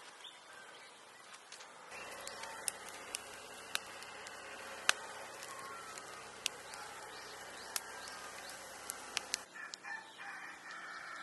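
A rooster crowing, over a small wood fire of kindling and sticks crackling with a dozen or so sharp, separate pops and cracks.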